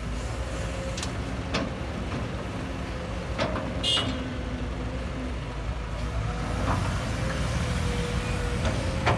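Kobelco SK200 hydraulic excavator running under load, a steady diesel rumble with a held hydraulic whine, as it swings and tips a bucket of dirt into a dump truck's bed. A few sharp clanks come through, the loudest with a brief ring about four seconds in as the bucket empties over the truck.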